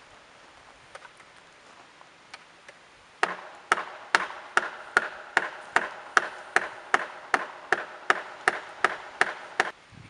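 Rapid, evenly spaced blows on wood, like chopping with a hatchet, about two and a half strikes a second. They start about three seconds in, after a few lighter taps, and stop just before the end.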